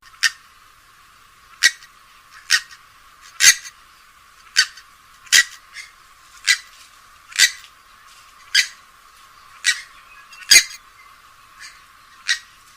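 Purple swamphen giving a series of short, sharp calls, about one a second, some louder than others. It is a lure call used to attract the bird.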